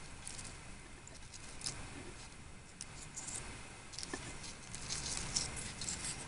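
Irregular light crackling and rustling of a paper towel, with small taps, as miniature fried potatoes are turned on it with chopsticks, a few sharper crackles after about four seconds.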